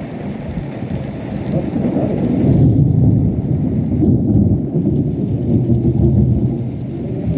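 Heavy rain falling in a thunderstorm, with a long low rumble of thunder that builds about two and a half seconds in and rolls on for several seconds.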